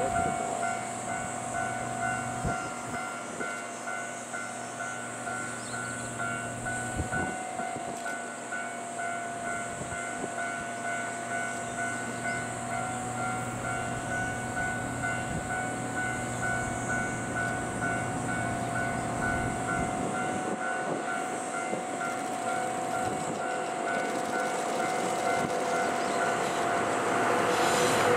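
JNR Class DD51 diesel-hydraulic locomotive hauling a long-rail works train up the grade, approaching from a distance and growing louder as it passes close near the end. A steady high whine runs throughout.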